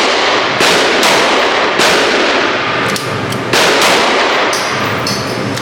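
Gunshots fired one at a time, about one every second or two, each sharp crack trailing off in a long echo.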